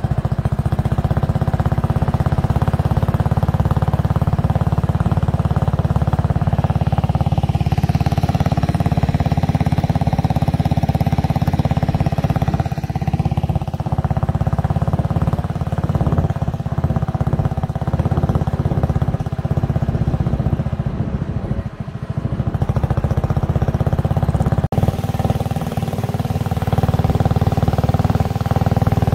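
Small tour boat's engine running steadily at cruising speed, with a brief dip in level about three quarters of the way through.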